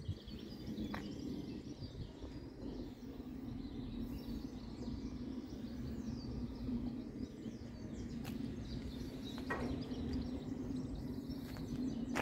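Outdoor ambience: small birds chirping over a steady low hum, with a few faint clicks.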